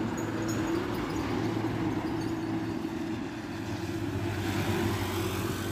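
Diesel truck engines running as the trucks drive past on the road, a steady engine hum with road noise that swells again about four seconds in as the next truck comes by.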